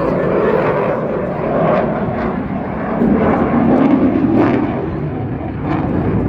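Eurofighter Typhoon's twin jet engines in a display pass, a continuous loud rushing jet noise that swells about three seconds in and eases again near the end.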